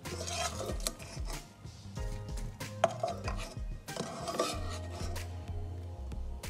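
A spatula scraping and knocking across a speckled nonstick frying pan, scooping out popped popcorn in a string of short, quick strokes.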